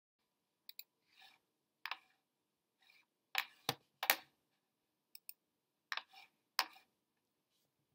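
Computer mouse clicking: about a dozen sharp clicks, some in quick pairs, with short soft brushing noises between them.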